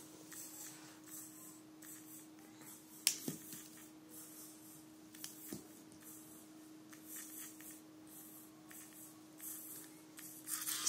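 Small DC drive motors of a two-wheeled self-balancing robot humming steadily as they hold it upright, with two sharp taps about three and five and a half seconds in as a thrown pencil strikes it.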